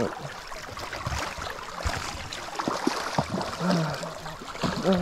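River current rushing and gurgling close by, with a few brief sharp knocks and splashes in the middle.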